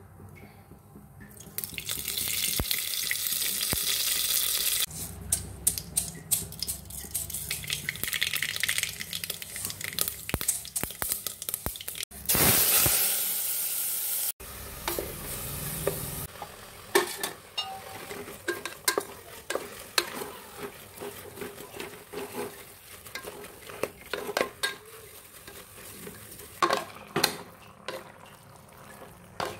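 Food frying in a hot pot: stretches of loud sizzling hiss a few seconds long, the loudest about twelve seconds in. In between and later come many short clinks and scrapes of a spoon stirring the raw beef pieces in the pot.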